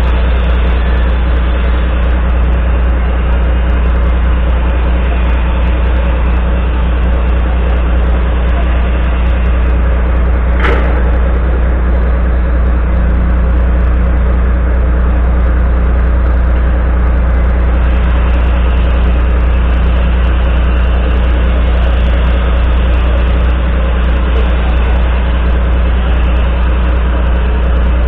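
Volvo FMX 440's 13-litre six-cylinder diesel idling steadily as a deep drone, with one sharp click a little over ten seconds in.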